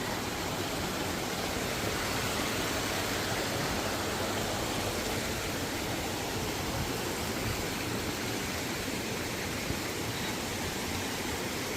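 Rushing water: a steady, even rush of falling and flowing mountain water.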